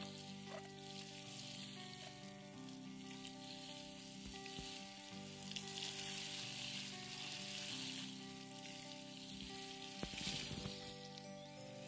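Water showering from a watering can's rose spout onto straw mulch and soil, a steady hiss and patter. Soft background music with held chords that change every few seconds plays underneath.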